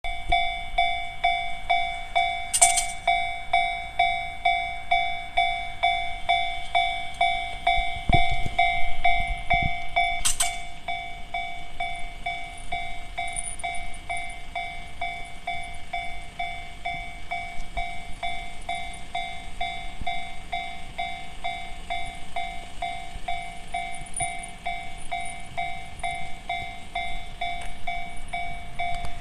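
Japanese level-crossing warning bell with the standard JR electronic tone, ringing steadily in a quick even rhythm of about two and a half dings a second. A brief low rumble comes about eight seconds in.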